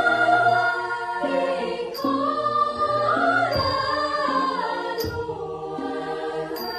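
Choir singing long held notes in harmony, moving to a new chord every second or so. Short sharp ticks come about every three seconds.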